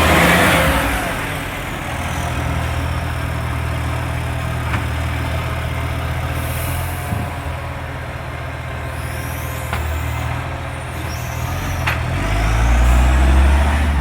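Garbage truck's diesel engine running with the rasp of an exhaust leak, louder at the start and swelling again near the end, with a few sharp clicks in between.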